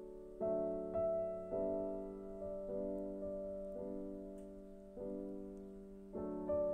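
Soft, slow background piano music: notes and chords struck about once a second, each ringing and fading out.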